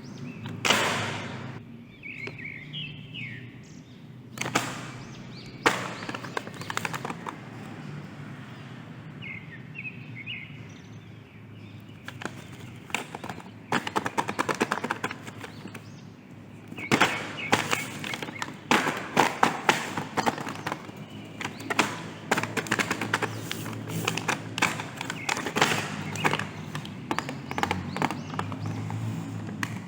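Hands handling a toy and its packaging: many short clicks, taps and thumps, coming thicker in the second half, with a few brief bird chirps in the background.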